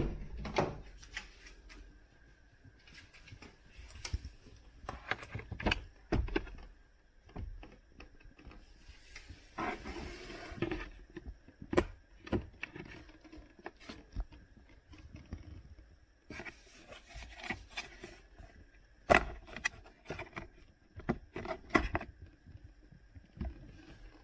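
Hand work on a car's cabin air filter housing: scattered sharp plastic clicks and knocks. Twice, about ten seconds in and again about seventeen seconds in, there is a stretch of scraping and rubbing lasting a second or two.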